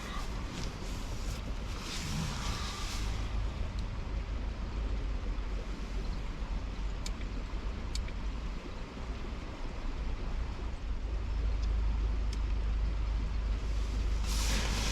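A steady low rumble that grows a little louder near the end, with a few faint sharp clicks.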